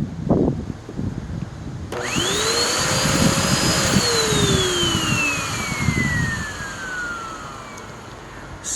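Hoover NanoLite vacuum motor switched on about two seconds in: its whine rises quickly and holds for a couple of seconds, then falls away steadily as the motor is switched off and spins down. Handling knocks and rustles come before and under it. The owner suspects a clog or obstruction somewhere in the airflow.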